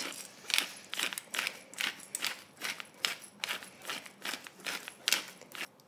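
Hand-twisted pepper mill grinding black peppercorns: a run of short crunching strokes, about two or three a second.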